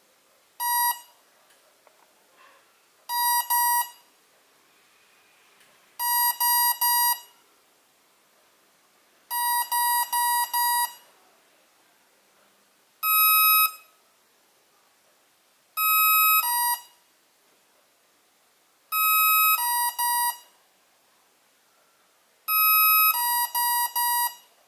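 Emax BLHeli 40A ESC beeping through its brushless motor in programming mode, cycling through its eight parameter codes. It gives one short beep, then two, three and four short beeps, then a long beep, a long and one short, a long and two short, and a long and three short, with a pause of a few seconds between groups. Each group marks the next setting, from brake type through to rotation direction, which can be chosen with the throttle stick.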